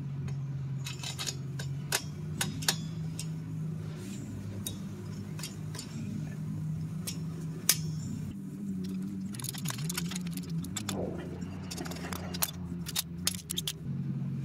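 Scattered metallic clicks and clinks of locking pliers and hand tools on a clamped leaf-spring pack as the center bolt is worked loose, over a steady low hum.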